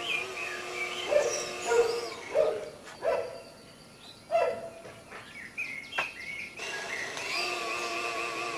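Birds chirping and a dog barking several times, against a steady background tone that drops out for a few seconds midway. There is a single sharp click about six seconds in.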